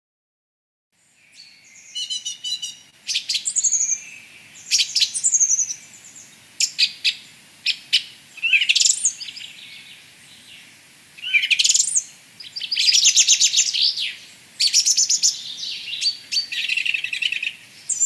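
Recording of a song thrush singing: a string of varied short phrases of whistles, trills, quick rising notes and rattles, with brief pauses between them, phrases repeated two to four times before it moves on. It starts about a second in.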